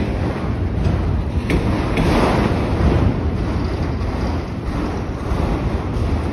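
Freight train of autorack cars rolling past close by: a steady rumble of steel wheels on rail, with a few short sharp clicks from the wheels and cars.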